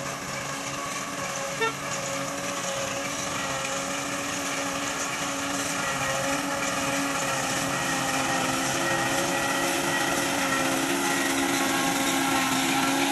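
Engine of a tracked grass cutter-chopper running steadily and growing slightly louder, with a short beep about one and a half seconds in.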